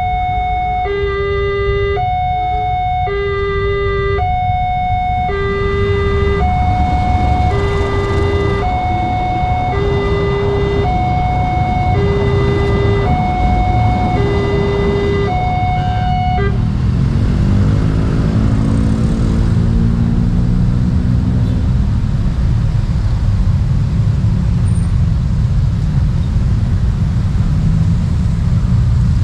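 Railway level crossing's electronic warning siren sounding two steady tones, low and high, in alternation about every 0.7 s, over a loud low rumble. The siren cuts off abruptly about 16 seconds in. After that a pitched engine note falls in pitch and the rumble carries on.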